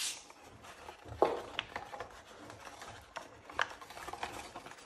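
Folded paper of a pleated herringbone origami form rustling and crackling as hands handle and press it, with a few sharp crinkles, the loudest about a second in.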